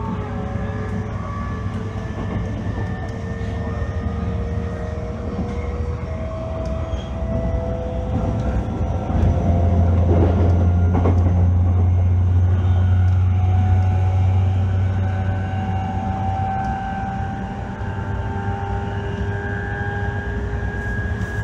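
JR East E531 series electric train running, heard from inside the car: the VVVF inverter and traction motor whine in several tones that slowly rise in pitch over the wheel and rail noise as the train gains speed. A heavier low rumble comes in about ten seconds in and eases off around sixteen seconds.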